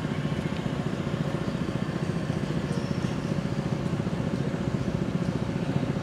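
Steady low rumbling noise with a fast flutter in it, and a faint steady hum above it.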